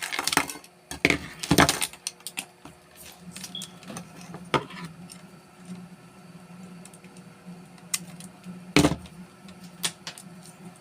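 Handling noise from a steel lockout cable and plastic dextrose tubing being worked by hand: scattered clicks and knocks, the loudest near the start and about nine seconds in, over a faint steady hum.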